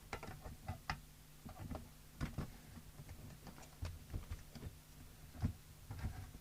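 Scattered light clicks and taps from handling power leads and clips on a workbench, over a faint steady hum.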